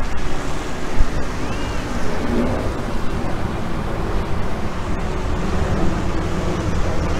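Wind buffeting the microphone over a steady outdoor wash of noise, heaviest in the low end.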